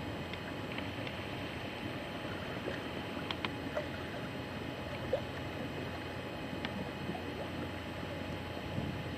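Steady rush of wind and choppy lake water against the boat carrying the recorder, with a few faint clicks.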